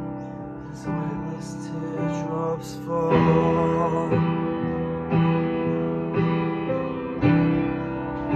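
Piano playing a slow instrumental passage, one chord struck about every second, getting louder about three seconds in.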